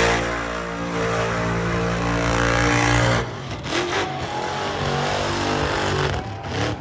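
Car engine held at high revs during a burnout, running loud and steady, then dropping away suddenly about three seconds in.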